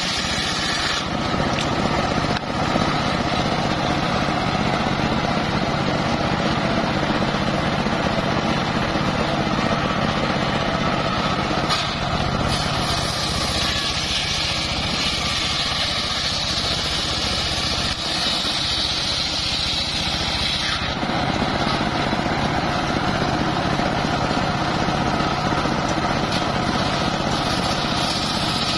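Homemade table circular saw running steadily, its drive engine droning, while the large blade rips sengon (albizia) timber. A high hiss of the blade cutting wood rises near the start and again for several seconds around the middle.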